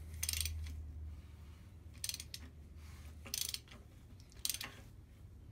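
Four short bursts of metallic clicking and rattling, about a second apart, from hand work on a Mini engine's crank and rocker gear as the engine is turned over to bring a valve to full compression.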